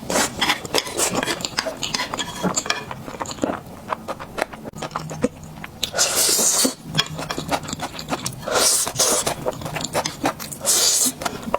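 Close-miked eating: irregular chewing clicks and smacks, several short slurps, and light clinks of utensils against the dish.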